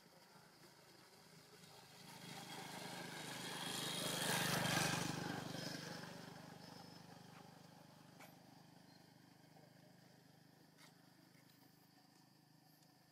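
A motor vehicle passing by, faint: its engine sound swells over about two seconds, is loudest about four and a half seconds in, then slowly fades away.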